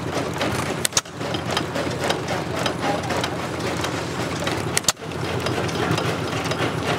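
Old stationary engine running steadily with a regular firing beat. The sound breaks off for an instant about a second in and again near five seconds.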